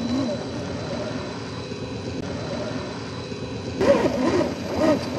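Traxxas TRX-4 scale RC crawler's electric motor and geared drivetrain whining as it crawls up rock, the pitch wavering with throttle, over a steady hiss. Near the end, a voice breaks in briefly and is the loudest sound.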